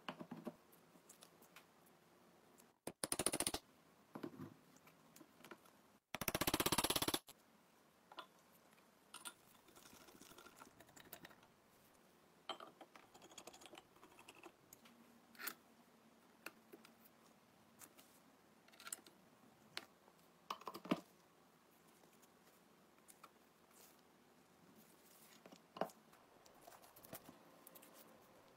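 Scattered small metal clicks and taps as the parts of a walking water sprinkler are handled, screwed and fitted together during reassembly: the cast aluminium gear and wheel, a screwdriver, and a bolt through the wheel bracket. Two short, loud hissing bursts come about three seconds in and again around six to seven seconds in.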